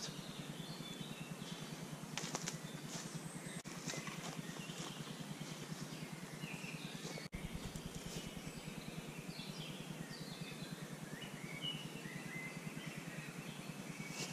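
Quiet woodland background with scattered short bird calls throughout, and a little soft rustling about two seconds in.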